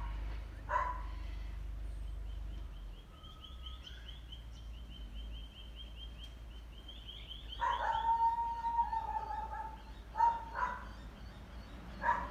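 A dog barking in single sharp barks. One bark about eight seconds in trails into a long, level howl lasting over a second.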